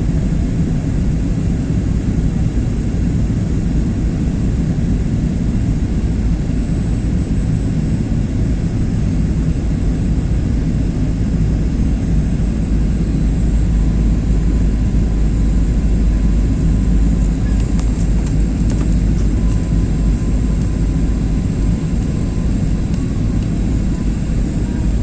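Airliner on its landing, a steady loud low drone from engines and rumble, with a thin steady high whine above it. A few faint clicks come about three-quarters of the way through.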